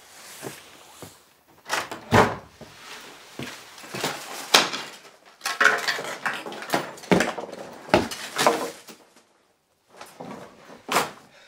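Someone rummaging through a wooden wardrobe: irregular knocks, bumps and clatter with rustling as things are pushed about and the wardrobe is handled, with a short pause about nine seconds in.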